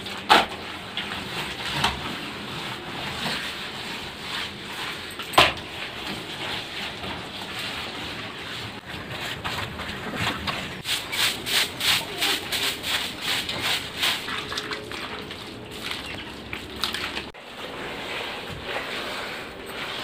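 Wet cotton cloth rubbed by hand over fresh clay plaster, spreading a mud slurry over a mud wall and floor: steady wet scrubbing with a few knocks, and a run of quick strokes, about three a second, in the middle.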